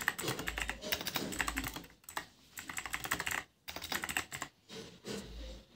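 Typing on a computer keyboard: quick runs of keystroke clicks with brief pauses between them.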